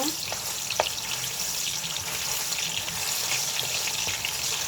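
Onions sizzling and crackling in hot olive oil in a cooking pot, a steady hiss with a thick patter of small pops.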